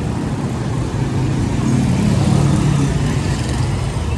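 A motor vehicle's engine running close by amid street traffic, growing louder to a peak a little past halfway and then easing slightly, as it passes.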